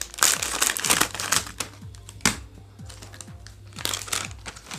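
Scissors snipping through a plastic snack packet, the packet crinkling as it is cut and handled, over background music with a steady beat.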